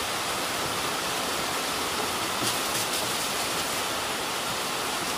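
Steady rushing hiss of heavy rain and running water, even throughout, with a couple of faint clicks about halfway through as plastic jerry cans are handled.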